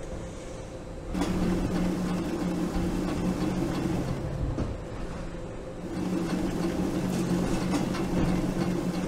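Conveyor-belt machinery running with a steady low hum and rattle. It starts about a second in, eases off briefly midway, and picks up again.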